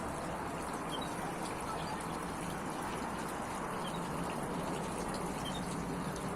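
Small artificial waterfall and fountain running, a steady splash and trickle of water, with a few brief high chirps from the aviary's canaries and goldfinches.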